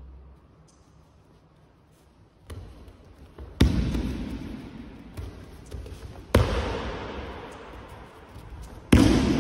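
Bodies slamming onto martial-arts mats as a jujutsu partner is thrown and breakfalls: a lighter impact, then three loud slams about a third in, past the middle and near the end. Each slam echoes and fades slowly in a large hall.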